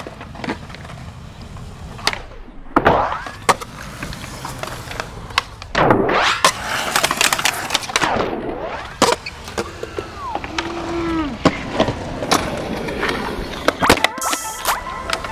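Skateboard wheels rolling on concrete, with several sharp clacks of tail pops and landings and a board grinding along a metal handrail.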